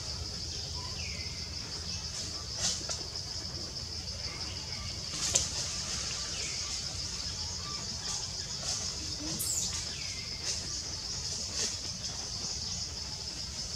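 Steady high-pitched drone of forest insects, with a few short falling chirps and several sharp clicks scattered through it, the loudest click about five seconds in.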